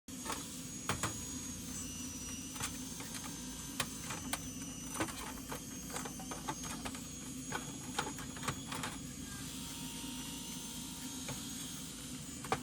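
Light, irregular clicks and taps, a dozen or more, over a steady low hum and a faint high whine.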